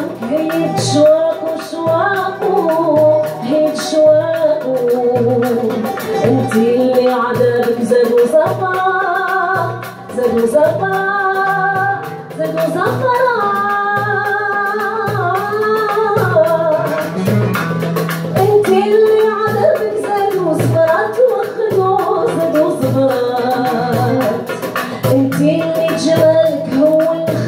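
A mandole and an acoustic guitar playing together live, with a woman singing a flowing melody over them into a microphone.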